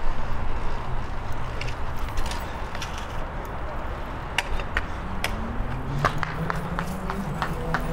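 Wind and road rumble on the microphone of a fixed-gear bicycle riding through city traffic, with sharp rattling clicks from about four seconds in and a motor vehicle's engine rising in pitch from about six seconds in.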